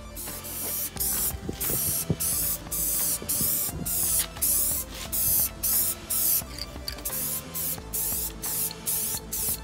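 Aerosol spray can hissing in many short bursts with brief gaps between them.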